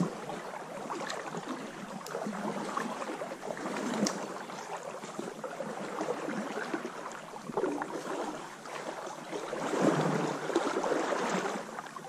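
Water of a small trout stream running and gurgling, a rushing noise that swells louder about ten seconds in.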